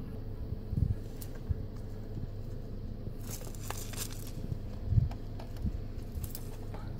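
Steady low hum of an idling car engine, heard from inside the car, broken by a few low thumps and a burst of crackling a little past the middle.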